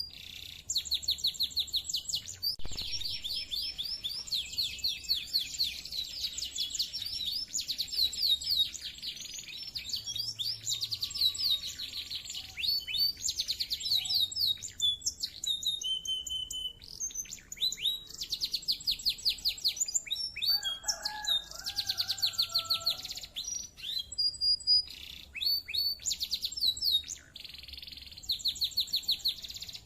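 Domestic canary in full song: long, fast trills of rapidly repeated high notes, strung together almost without a break, with only short pauses between phrases.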